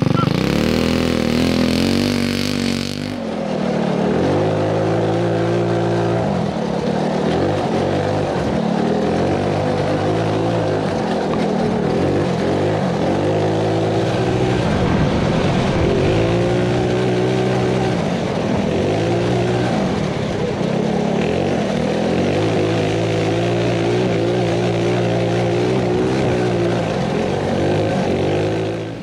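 Big-valve Tillotson 225 single-cylinder go-kart engine with a big racing cam, revving hard from the launch and then rising and falling in pitch again and again as the throttle goes on and off around the track, heard from on board the kart.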